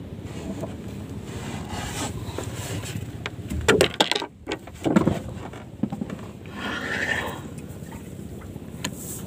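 Camera handling noise: a knitted glove and the wooden boat side rubbing and scraping against the microphone, with a cluster of loud scrapes and knocks about four to five seconds in and a softer scrape near seven seconds, over a steady background hiss.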